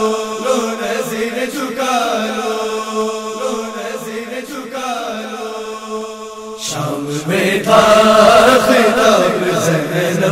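Group of voices chanting a nauha refrain over a held low note. About two-thirds of the way through, the held note drops in pitch and the chanting grows louder.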